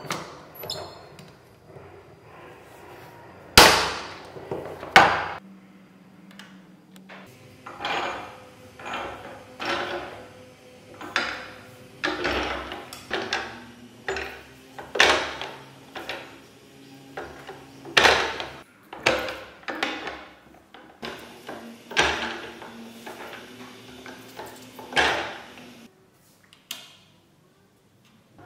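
Hand tools striking and working a small piece of silver against steel: a run of sharp metallic knocks, roughly one a second, with two louder strikes about four and five seconds in.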